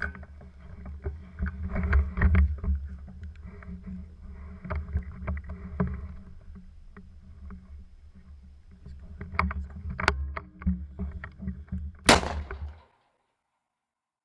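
Hunter walking through grass with a torch-lit rifle: a low rumble of handling and microphone noise with scattered footstep crunches and knocks. Near the end comes one loud sharp crack, and the sound then cuts off.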